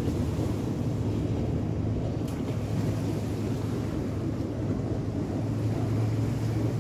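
Wind rumbling on the microphone, with small waves lapping against shoreline rocks: a steady low noise.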